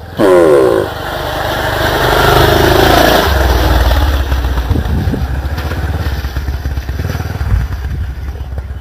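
Motocross dirt bike engine revving hard, its pitch sweeping up and down as the rider works the throttle, then running steadily under load.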